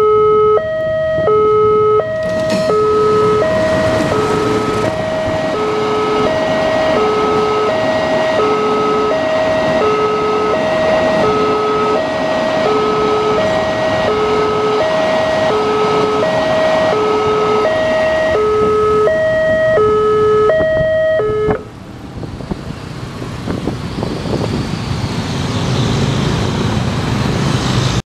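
Level-crossing warning alarm sounding a repeating two-tone chime while a diesel locomotive and a string of tank wagons roll through the crossing, with steady wheel and rail noise. The alarm cuts off suddenly about two-thirds of the way through, and the wagons' rolling noise carries on at a lower level.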